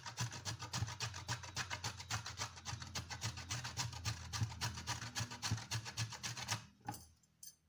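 Peeled tapioca (cassava) root being grated on a metal box grater: rapid, even grating strokes that stop about a second before the end.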